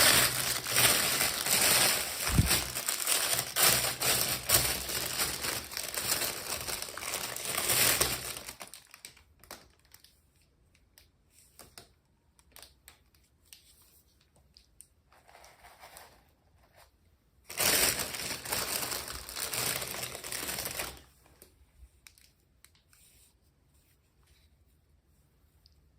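Packaging wrapper being crinkled and handled while a miniature is unboxed. The crinkling runs for about the first eight seconds. Faint small clicks and taps follow, then a second burst of crinkling lasting about three seconds, starting around two-thirds of the way in.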